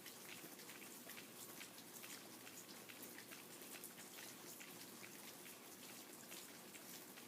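Faint rain falling, with many separate drops striking a surface in an irregular run of small ticks over a steady hiss.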